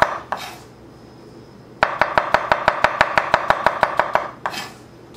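Kitchen knife slicing crimini mushrooms on a wooden cutting board, in quick even knocks about six a second. The knocks stop twice briefly: once for about a second and a half near the start and once shortly before the end.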